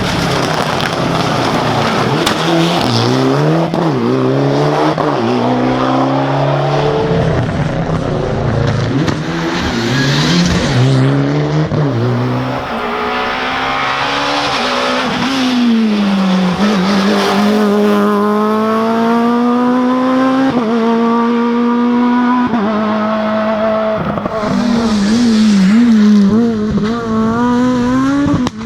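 Rally car engines revving hard through a stage. The pitch climbs and falls over and over, with a run of stepped rises and drops through gear changes in the second half.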